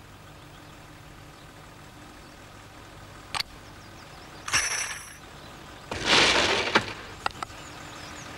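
Metal fire-hose couplings clicking and clinking as hose lengths are joined and fitted to a fire engine's pump, with one ringing metallic clink about halfway through and a short rushing noise about six seconds in.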